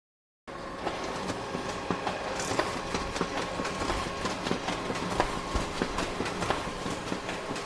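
Photocopier running: a steady mechanical whir with a constant hum and a stream of irregular clicks and clacks, starting abruptly about half a second in.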